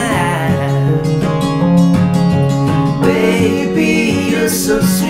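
Acoustic guitar strummed together with a keyboard, playing a country-style song.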